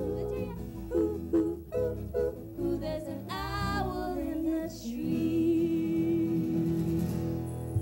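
Live children's band playing electric and acoustic guitars with singing: strummed rhythm, a high sung note sliding down about three seconds in, then a long held note to finish.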